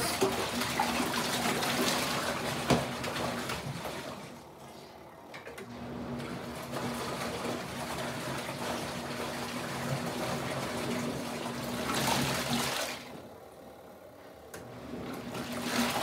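Kuppet twin-tub portable washing machine on its wash cycle: the wash motor hums while water and towels churn in the tub. The churning stops briefly twice, about four and about thirteen seconds in, then starts again.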